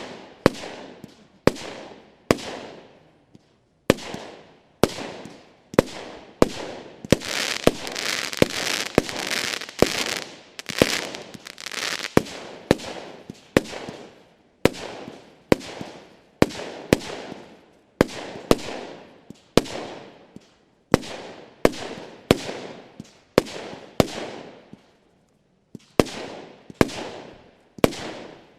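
TNT Lost Gravity 20 mm, 49-shot firework battery firing: a steady run of sharp shots, about one every second, each with a short fading tail. The shots bunch closer and louder a quarter to a third of the way in.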